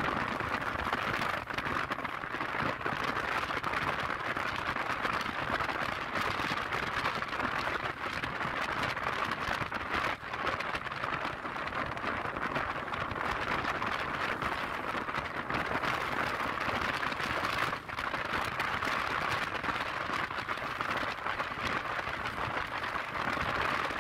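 Steady rush of wind and road noise on the microphone of a motor scooter riding at speed, with no clear engine note.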